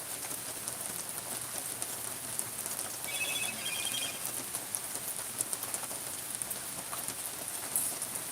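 Steady rain falling, an even hiss of drops hitting surfaces. A few brief high chirps sound about three seconds in.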